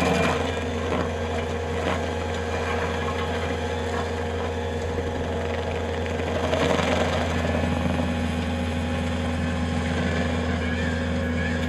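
Bobcat skid-steer engine running steadily while working a stump grinder attachment, a constant mechanical drone that swells briefly about six seconds in.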